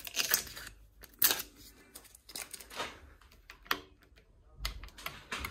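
Black plastic switch handle on the arm of an Epple BS 125 GS metal band saw being gripped and worked, giving irregular clicks and short rattles, the sharpest about a second in. The grip is loose, with some play in it.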